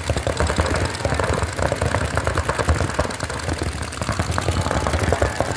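Paintball markers firing in rapid, overlapping streams of shots, a fast run of sharp pops during play.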